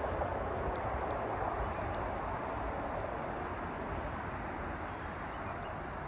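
Steady rushing outdoor background noise, with faint sharp clicks of American goldfinches pecking seed on a hard surface and a few faint, short, high chirps.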